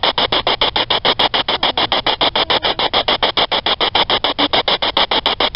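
Ghost-box radio sweeping through stations: loud static chopped into short, even pulses about ten times a second, hissier in the upper range.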